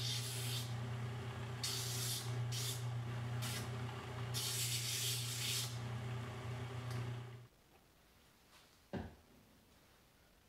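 A 1-inch vertical strip sander's motor runs with a steady hum, and there are several short bursts of sanding hiss as a small glued wooden spring and metal rub plate is pressed against the belt. The sander's sound stops abruptly about seven and a half seconds in, and one short click comes a second and a half later.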